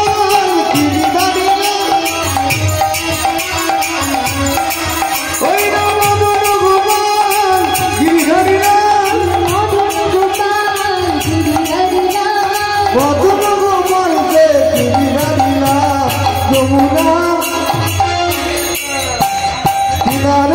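Bengali harinam kirtan: a woman sings a devotional chant over a khol drum, harmonium and a fast, steady jingle of hand cymbals.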